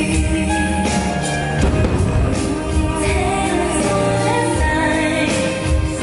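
Fireworks show soundtrack: music with singing.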